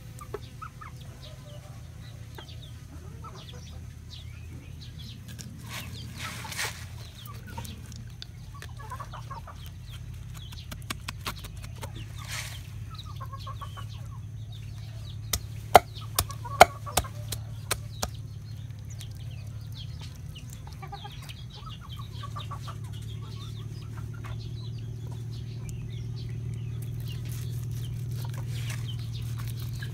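Chickens clucking, over a low steady hum. A little past halfway through comes a quick run of about five sharp knocks: a knife blade striking a wooden chopping board.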